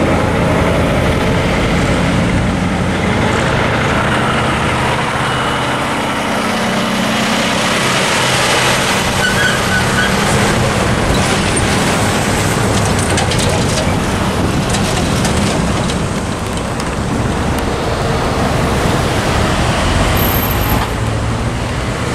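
Road traffic driving over a railroad crossing: a tractor-trailer and cars pass close by with engine and tyre noise.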